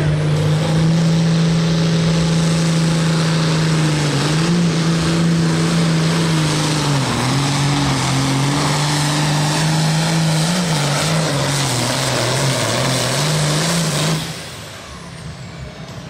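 John Deere pro field pulling tractor's engine running flat out while hauling the weight-transfer sled, its pitch holding steady at first, then sagging and recovering several times as the sled bogs it down. About fourteen seconds in the engine note drops away sharply as the pull ends.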